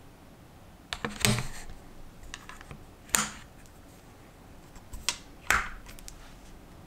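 A rifle's rail set down into the lever-release clamp of a Really Right Stuff Anvil 30 ball head and the clamp lever thrown to lock it: a short cluster of metal knocks about a second in, then single sharp clicks around three seconds and twice near five seconds.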